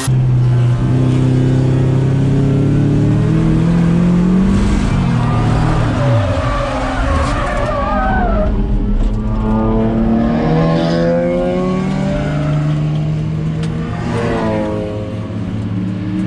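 Mazda Miata race car's engine running hard under load, its pitch dropping about five seconds in and climbing again as it pulls back up. A wavering tyre squeal comes through near the middle.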